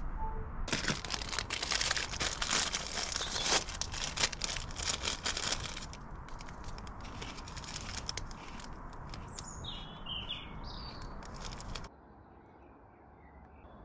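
Close crinkling and rustling of plastic packaging being handled, dense for the first few seconds and lighter after. A few bird chirps come near the end, then the sound drops suddenly to a faint outdoor background.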